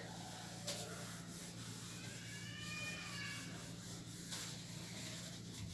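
Soft rubbing of a cloth duster wiping marker ink off a whiteboard, faint over a low steady hum.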